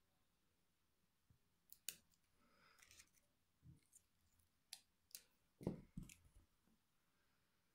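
Faint, scattered clicks and a soft rustle of small plastic parts handled: propellers being pushed onto a plastic mini quadcopter's motor shafts. A duller knock about six seconds in is the loudest sound.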